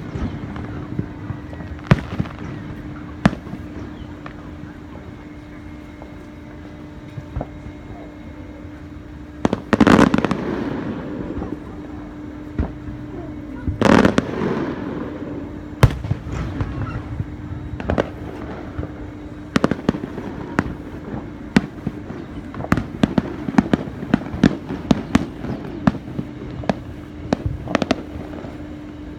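Aerial fireworks going off: scattered booms, two big bursts about ten and fourteen seconds in that trail off into crackling, then a rapid run of many sharp bangs and pops through the second half. A steady low hum runs underneath.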